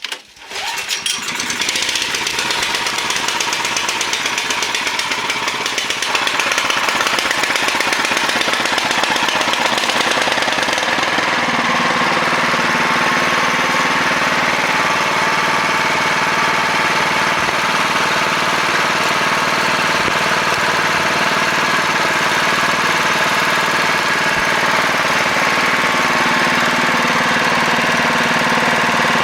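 Snowblower engine pull-started on choke after priming, catching almost at once and running steadily. The engine gets louder about six seconds in, and its note shifts again around twelve seconds in.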